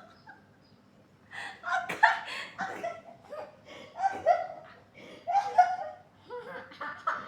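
Laughter in a run of short bursts after a quiet first second, with a sharp snap about two seconds in.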